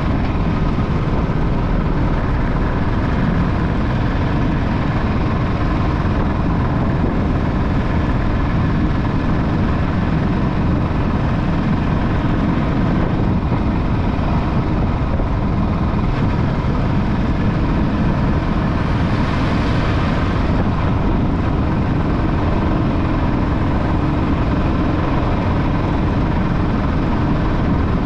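Motorbike being ridden through city traffic: a steady, loud rush of engine, road and wind noise.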